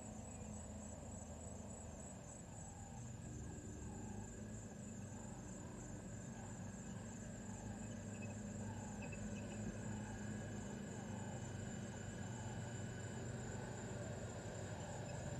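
Insects chirping steadily in the bush: a high, fast, evenly pulsing trill, with a low rumble that grows louder near the end.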